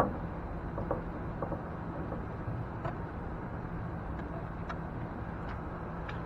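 Light knife clicks and taps on a cutting board while a fish is filleted, a handful of scattered ticks over a steady low rumble.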